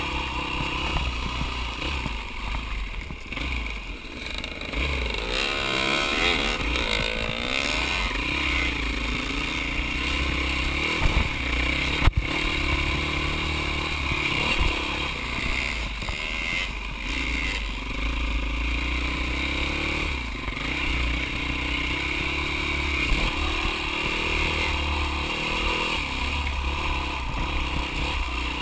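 Dirt bike engine running as the bike is ridden along a rough trail, its pitch rising and falling with the throttle. There is a sharp knock about twelve seconds in.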